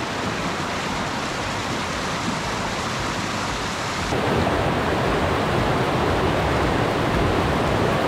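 Mountain stream rushing and splashing over boulders in a steady rush of water, growing louder and fuller about halfway through.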